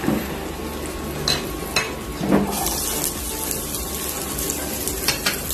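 Chopped garlic going into hot cooking oil in a stainless steel pot, sizzling from about two and a half seconds in as it is stirred, with several sharp clinks of a utensil against the pot.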